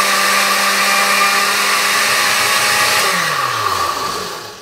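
Oster countertop blender running steadily while it blends a mamey milkshake. About three seconds in it is switched off, and the motor winds down with a falling pitch until it stops.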